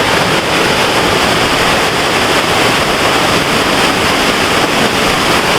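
Waterfall crashing in a loud, steady rush of water. The falls are running high, swollen by snowmelt in hot weather, and the water is extra loud.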